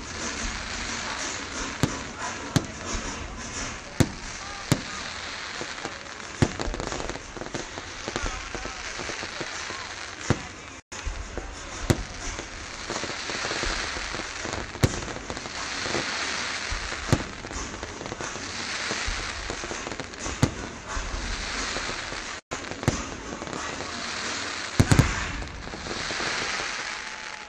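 Fireworks display: sharp bangs of bursting shells at irregular intervals, with a loud double bang near the end, over a steady background of crowd voices.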